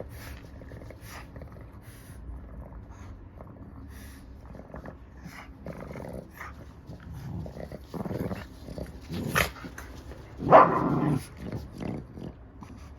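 A pet dog making short, irregular breathy and growly noises at close range, with one louder, rough burst about ten and a half seconds in.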